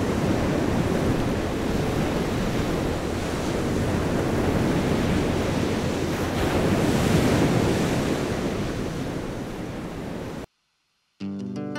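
Sea surf washing onto a shore as a steady rush of noise that swells and eases, then cuts off abruptly near the end.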